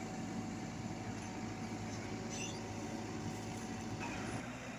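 Komatsu WB93R backhoe loader's diesel engine running steadily, its low hum shifting slightly a little after four seconds in.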